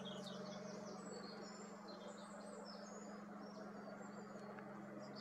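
Small birds chirping in the background, short high chirps and down-slurred notes, over a steady low hum.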